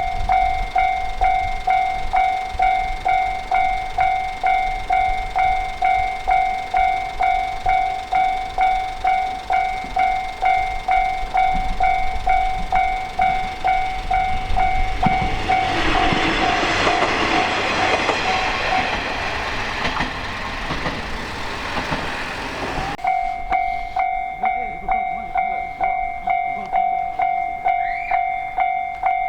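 Japanese railway level-crossing warning bell sounding its 'kan-kan' strikes at just under two a second. About halfway through, a passing train's running noise swells and drowns out the bell for several seconds. After an abrupt break the bell strikes resume.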